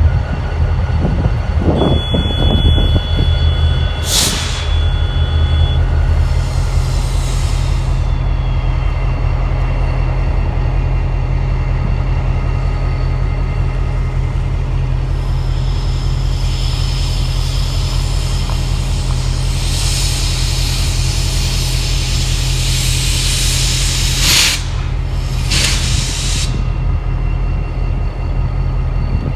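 BNSF EMD diesel locomotives idling with a deep, steady engine sound. Hissing air sounds over it: a short hiss about four seconds in, a longer spell of hissing past the middle, and two short sharp hisses near the end.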